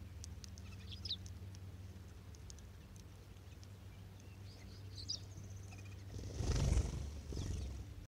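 Cassin's finches giving scattered short chirps and calls, then about six seconds in a brief rush of wingbeats as the whole flock flushes at once.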